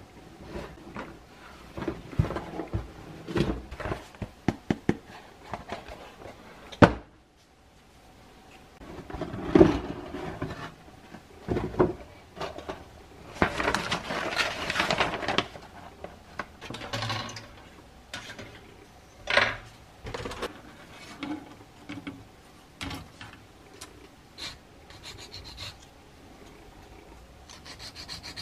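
Handling of a plastic model kit: a series of clicks and knocks from the cardboard box and plastic parts, then, about halfway through, a longer rustle of the paper instruction sheets being leafed through. Scattered clicks and light rubbing of small plastic parts follow.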